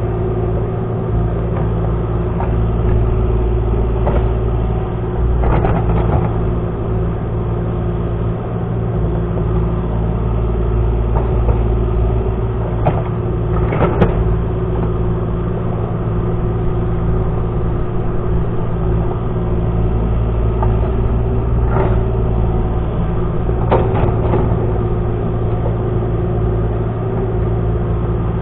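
Excavator engine running steadily with a constant whine, and a few sharp knocks and clanks now and then, the loudest about halfway through.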